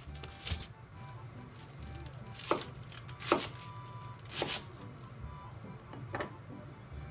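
Kitchen knife chopping through cabbage onto a wooden cutting board: about five separate chops, a second or so apart. Quiet background music runs underneath.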